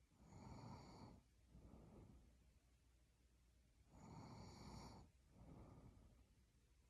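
A sleeping person snoring softly: two breaths about four seconds apart. Each is a noisy in-breath with a thin high whistle on top, followed by a quieter out-breath.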